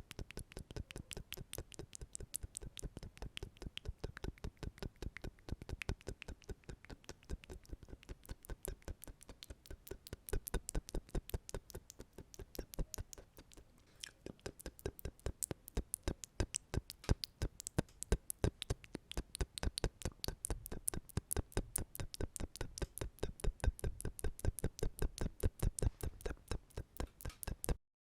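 ASMR mouth sounds recorded close to the microphone: a quick, steady run of wet mouth and tongue clicks, about six a second, which stops abruptly near the end.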